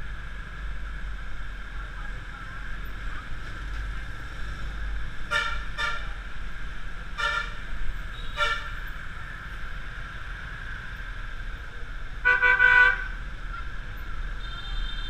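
Motorbike horns beeping in city traffic: four short beeps about five to nine seconds in, then a longer, louder honk near the end. Under them is the steady running of a motor scooter engine and road noise.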